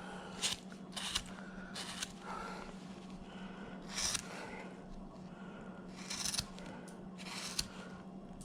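Hand carving tool slicing and paring wood in short cuts, about six strokes spread over several seconds, with a steady low hum underneath.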